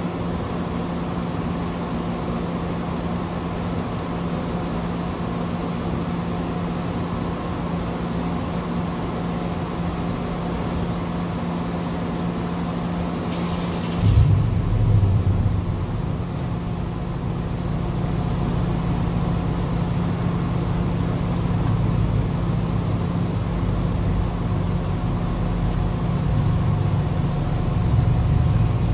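Vehicle engines idling with a steady hum. About halfway through, a short hiss is followed by a deeper, louder low rumble that carries on to the end.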